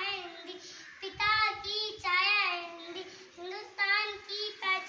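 A young girl singing a Hindi poem in a chanted tune, with no accompaniment, in three short phrases separated by brief pauses.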